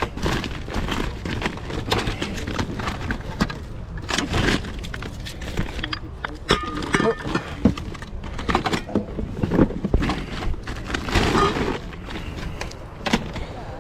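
Irregular clatter of many small knocks and clinks, with faint voices in the background.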